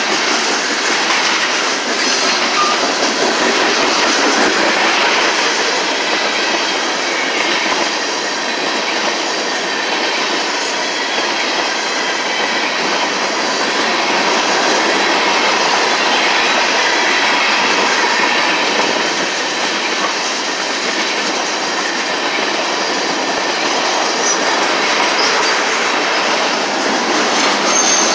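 Covered hopper cars of a freight train rolling past close by: a steady rush of steel wheels on rail, with occasional clacks as the wheels cross rail joints.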